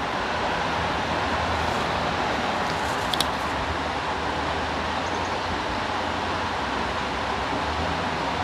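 Steady rush of water flowing through a creek's tailwater below a dam, with a brief click about three seconds in.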